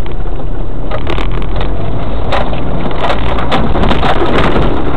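Land Cruiser 4x4 running steadily in low gear on a rough, overgrown forest track, with repeated sharp cracks and snaps as branches scrape and break against the truck.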